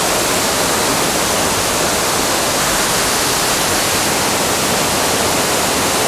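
Steady, loud rush of a powerful waterfall's falling water, even and unbroken.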